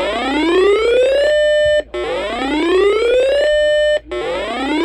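Electronic whoop alarm tone: a pitch that climbs for about a second and a half, holds briefly and cuts off, repeating about every two seconds.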